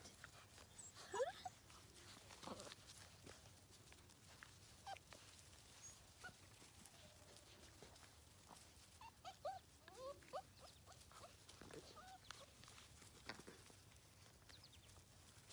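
Faint, scattered squeaks and little yelps from five- to six-week-old Labrador retriever puppies at play, with a small cluster of them past the middle and light scuffling in between.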